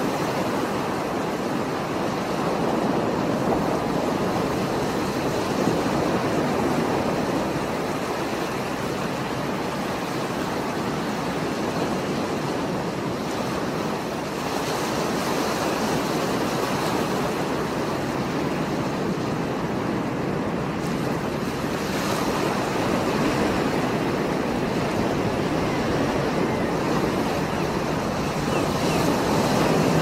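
Rough, stormy sea surf: heavy waves breaking and churning against a rocky shore. A continuous rush of water that rises and falls gently in loudness.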